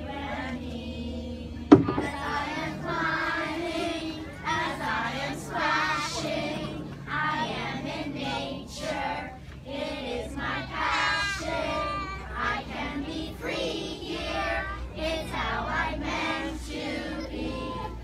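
A group of young children singing a song together in unison. A single sharp knock about two seconds in stands out above the singing.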